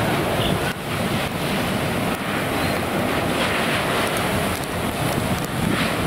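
A burning car being hit by a fire hose stream: a steady rushing hiss of water spray and flames.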